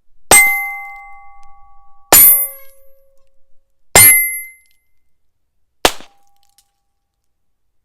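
Heritage Barkeep .22 Long Rifle single-action revolver firing four shots about two seconds apart. Each of the first three is followed by a metallic ring, and the last is short with little ring.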